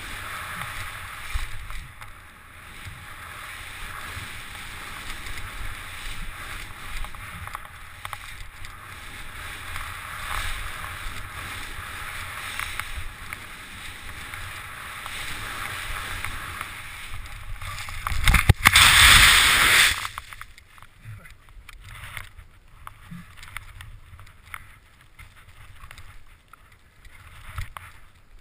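Wind rushing over an action camera's microphone and skis hissing through snow during a fast powder descent. About two-thirds of the way through, a loud burst of rushing noise as snow sprays over the camera. After that the sound is suddenly muffled and much quieter, with the lens packed with snow.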